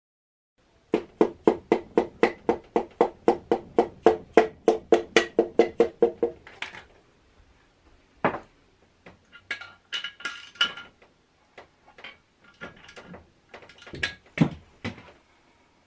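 Hand tools working on a bare aluminium engine block: a fast, even run of metal taps, about five a second for about five seconds, then scattered lighter clicks and clinks of tools against metal.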